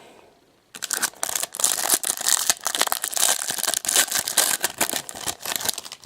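Trading-card pack wrapper being crinkled and torn open by hand: a dense, continuous crackling that starts about a second in.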